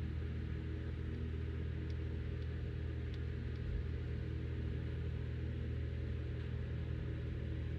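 Steady low mechanical hum with several even low tones, unchanging throughout, and a few faint small clicks.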